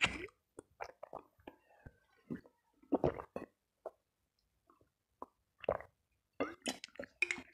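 Close-range eating sounds: scattered short chewing and mouth smacks mixed with small clicks of a metal spoon in a bowl, going quiet for about a second and a half just past the middle and picking up again near the end.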